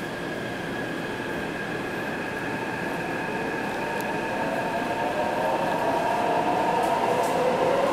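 Taipei Metro C381 train's traction motors and inverter whining as the train accelerates, heard inside the car. Steady high tones run throughout; several lower tones begin to rise about halfway through, and the sound grows louder.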